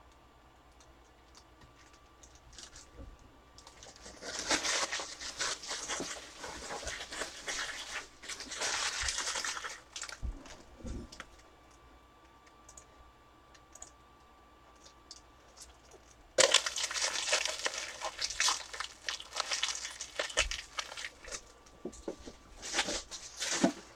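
Trading-card packaging crinkling and tearing as a box and its packs are opened by hand. It comes in two spells: one from about four seconds in to about ten seconds, and a louder one starting with a sharp crack at about sixteen seconds.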